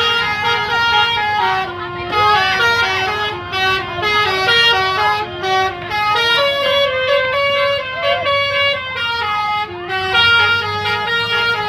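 Bus basuri horn, a multi-tone musical horn, playing a melody of short held notes one after another without a break.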